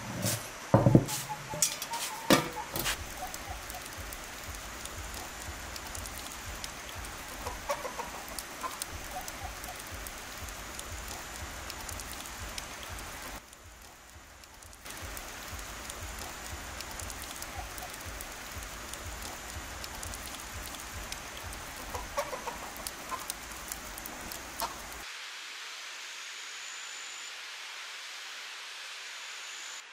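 Domestic hens clucking now and then over a steady outdoor background hiss. A few sharp knocks come near the start.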